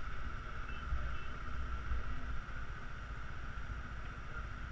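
Muffled low rumble of a Yamaha Xenter 150cc scooter riding slowly through traffic, picked up by a helmet-mounted camera, with a steady hum over it.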